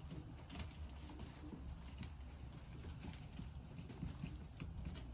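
Faint, irregular tapping and shuffling of pigeons moving about and pecking on the loft floor, over a low rumble.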